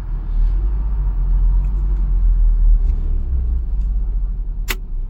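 Maruti Suzuki Ertiga engine idling steadily with a deep low rumble, with one sharp click near the end.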